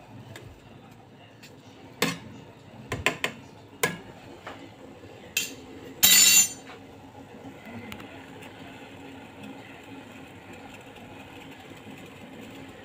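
A metal spoon clinking and knocking against the inside of a stainless steel pot of water, a handful of separate clinks, with one louder half-second clatter about six seconds in.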